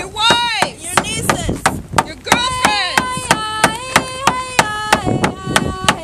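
Hand drum struck with a beater in a steady beat, about three to four beats a second, with women singing a high, held song over it.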